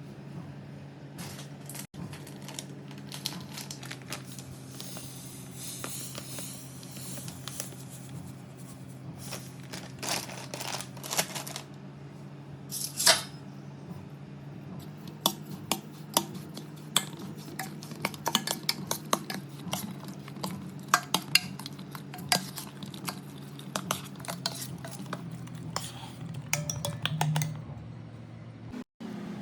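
Metal dishes and utensils clattering and clinking again and again, over a steady low hum.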